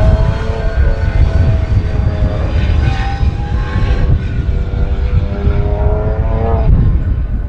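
Hansen GTR race car's 6.0-litre W12 engine under hard acceleration, its pitch climbing and changing through the gears, with heavy wind buffeting on the microphone. The engine note breaks off near the end.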